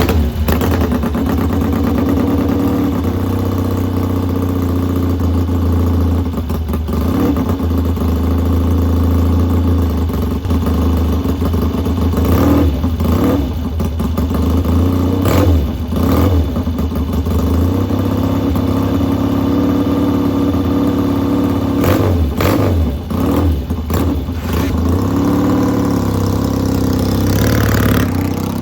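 1966 Triumph Bonneville T120TT's 650cc parallel-twin engine running warm and loud, with the throttle blipped in short revs several times over the second half.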